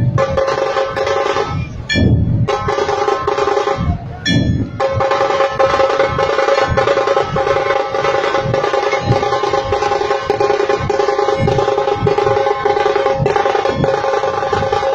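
A dhol drum troupe pounding out a fast, even rhythm over a steady held tone, with a few short shrill blasts in the first five seconds.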